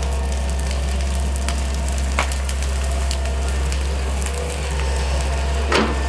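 An engine running steadily under crackling and snapping of wood and branches, with a louder burst of cracking near the end.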